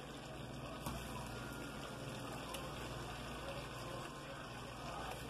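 Plantain slices sizzling steadily in melted butter in a frying pan, with a couple of faint ticks as more slices are laid in.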